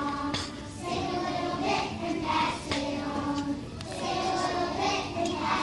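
A group of preschool children singing a song together, with notes held and moving through a simple tune.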